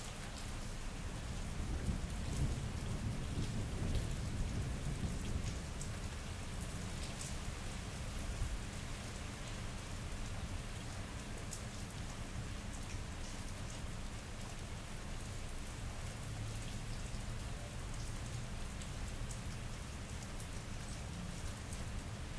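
Steady rain falling on wet pavement, with individual drops ticking. A low rumble of thunder swells about two seconds in and dies away a few seconds later.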